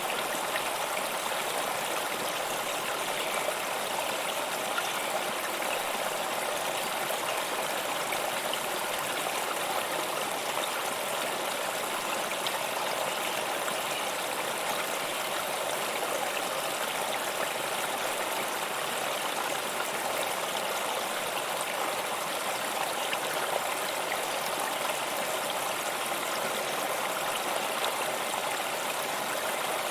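Waterfall: water falling and splashing in a steady, unbroken rush, mostly hiss with little low rumble.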